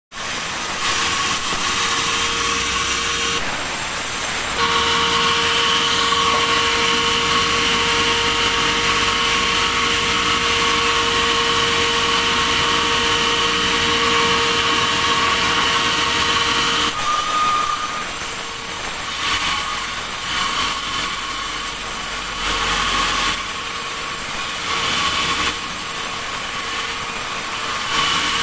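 Sawmill saw running and cutting through a log: a steady mechanical whine over a loud hiss. The whine drops out a little past halfway and the sound turns more uneven.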